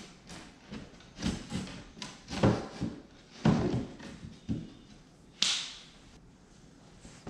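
A run of knocks and thuds as the cardboard-and-board base of a knock-down sofa section is handled and pressed into place, with a short hissing scrape about five and a half seconds in.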